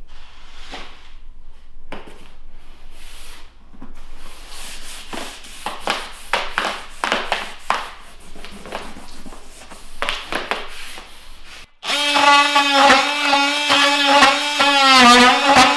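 Flooring planks being handled and fitted: a run of short, irregular rubbing, scraping and tapping strokes. About twelve seconds in it cuts abruptly to strummed guitar music.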